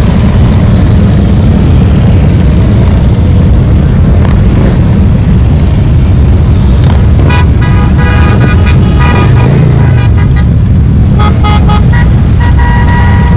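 Traffic: a loud, steady low rumble, with short horn toots several times in the second half and a longer held toot near the end.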